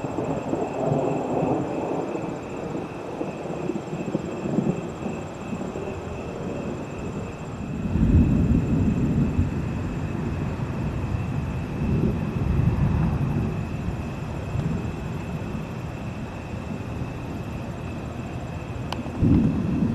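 Distant thunder rumbling low and long, with heavier rolls starting about eight seconds in, again a few seconds later, and near the end.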